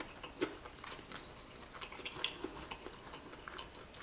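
A person chewing a mouthful of crispy fried chicken close to the microphone: irregular crunches and wet mouth clicks, a few a second.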